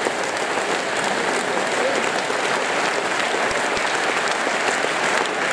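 Large audience applauding steadily, a dense even clapping of many hands.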